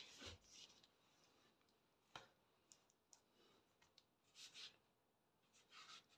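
Faint swishes of a Chinese brush stroking ink onto paper, with a few light clicks between the strokes.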